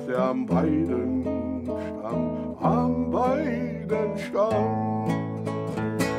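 Music: strummed acoustic guitar with a wavering melody line over it.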